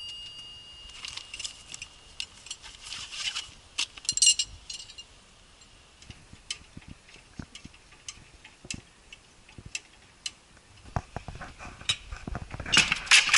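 Metal tools clicking and clinking on a pickup truck's wheel as it is changed by hand, in scattered irregular knocks. A louder burst of noise comes near the end.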